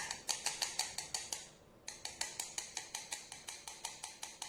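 Rapid light tapping, about seven taps a second, in two runs with a short pause about a second and a half in. The taps knock ground coffee out into a moka pot's filter basket.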